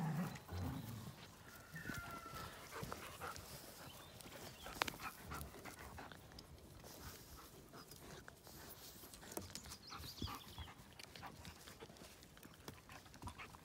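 Dogs panting and snuffling at play in grass, with scattered faint clicks and rustles.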